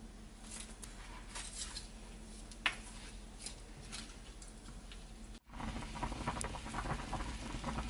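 A wooden spoon stirring chicken, vegetables and spices in a pot of water, with scattered light clicks and taps. After a cut about five and a half seconds in, the broth is boiling hard, a dense bubbling and crackling under a layer of foam.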